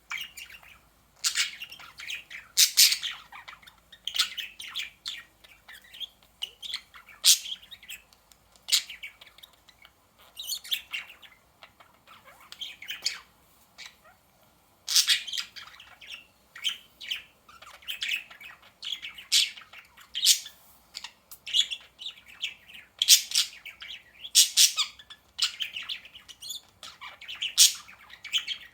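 Pet budgerigars chirping and warbling: a rapid, irregular run of short high-pitched chirps and squawky calls, with brief pauses between bursts.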